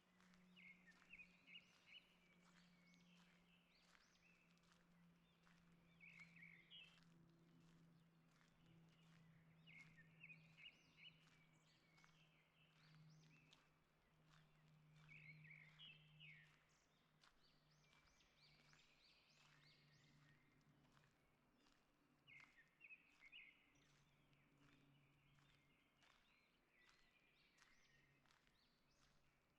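Faint forest birdsong: a songbird repeating short, quick phrases every few seconds, over a low steady hum that fades away over the second half.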